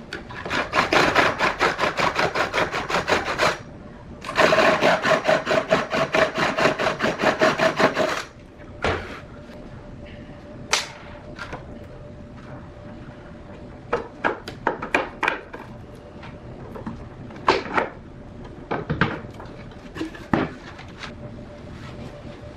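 Rapid, even knocking at about eight strokes a second in two runs of a few seconds each, then scattered single knocks and clicks.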